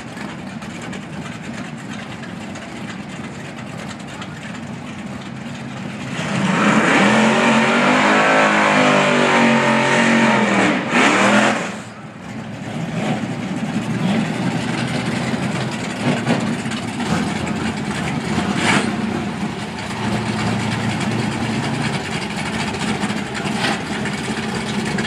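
Drag-racing car doing a burnout: about six seconds in, its engine revs hard and loud for around five seconds, the pitch sweeping up and down as the rear tyres spin, then it cuts off suddenly. Before and after, engines run at low revs as the cars creep up to the starting line.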